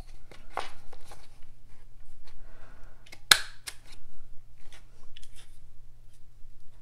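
Handheld corner rounder punch snapping shut on cardstock, one sharp click about a third of the way in and a smaller one just after, with paper and punch being handled around it.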